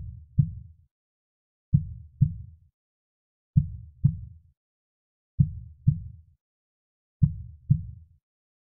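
Soft, slow heartbeat: five low double thumps (lub-dub), the two beats of each pair about half a second apart and a new pair about every 1.8 seconds, with silence in between.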